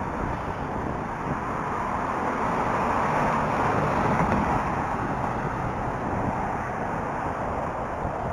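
Road traffic on a multi-lane street going by close at hand, one vehicle's tyre and engine noise swelling to a peak about three to four seconds in and fading away, over a low wind rumble on the microphone.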